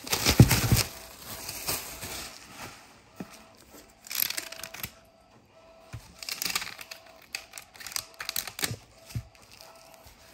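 Clear plastic packaging crinkling under the hands, loudest in the first second, followed by bursts of paper rustling as a large sheet is rolled up.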